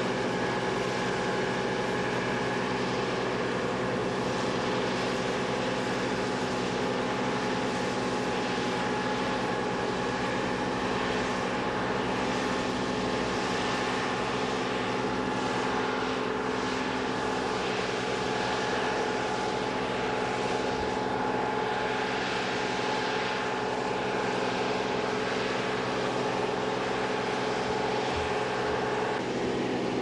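Deutz-Fahr PowerLiner Climber combine harvester running steadily while harvesting, a constant drone of engine and threshing machinery with several held tones.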